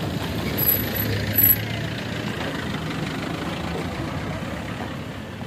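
A car moving slowly past close by, its engine running with a steady low hum that fades gradually as it pulls away. Two short high-pitched chirps come about a second in.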